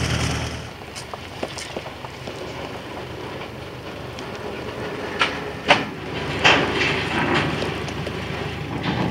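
Heavy truck engine running, falling away within the first second, followed by scattered metallic clanks and knocks from the truck and trailer hauling the cabin, louder knocks coming around five to six and a half seconds in.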